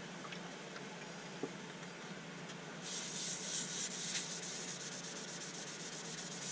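A paper towel rubbing oil finish onto the outside of a turned beech bowl by hand: a soft hissing swish of wiping strokes that starts about three seconds in.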